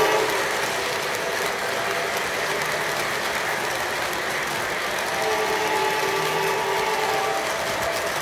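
Model train freight cars rolling past, a steady rattling clatter of metal wheels on the track. From about five seconds in, a fainter horn tone sounds for two or three seconds.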